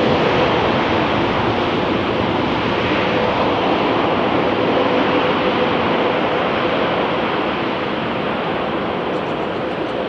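Jet airliner engines: a steady rushing roar with a faint steady hum underneath, slowly fading.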